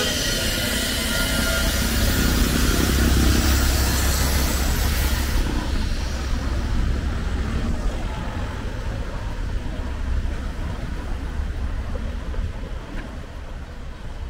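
Road traffic: a vehicle passes close by with a loud rumble and hiss. About five seconds in the hiss drops away, and the sound fades to a lower traffic noise.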